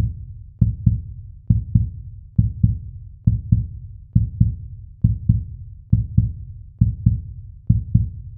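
Heartbeat sound effect: a steady double thump (lub-dub) of deep beats, a little over one heartbeat a second.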